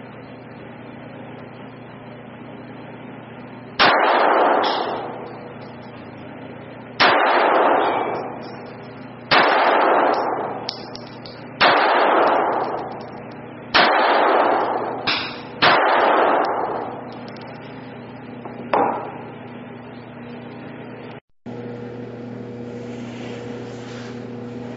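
Compact Sig Sauer pistol fired at an indoor range: about seven shots, roughly two seconds apart, each ringing out and dying away over a second or so in the room's echo. Near the end it gives way to a steady hum.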